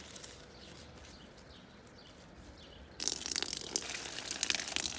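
Faint, repeated short bird chirps for about three seconds, then a sudden switch to dense rain patter, a thick hiss full of small ticks.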